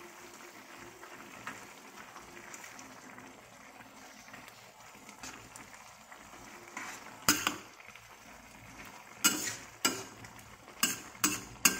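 A metal ladle stirring pancit noodles and vegetables in a stainless-steel wok, over a faint steady cooking hiss from the hot pan. In the second half the ladle knocks sharply against the pan about six times.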